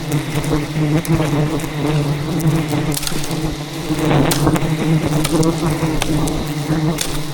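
Swarm of giant honey bees buzzing in a steady, loud drone close around the microphone, the defensive buzz of a disturbed wild colony, with a few sharp clicks now and then.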